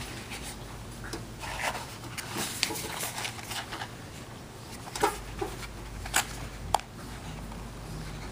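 Handling noise from a folding knife being turned over in the hands: soft rustling with a few sharp clicks, three of them about five, six and near seven seconds in.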